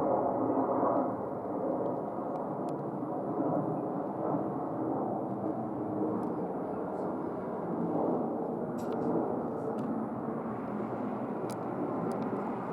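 Steady jet engine noise from a Delta Boeing 757-200 on the runway, with a few faint clicks near the end.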